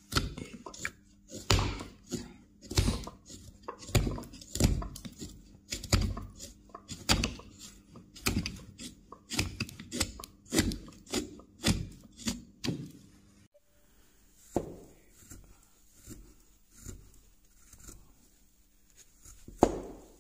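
A carving knife cutting into a wooden block in short, crisp strokes, wood shavings cracking off with each cut. The cuts come about one every half second to a second for the first dozen seconds, then more sparsely.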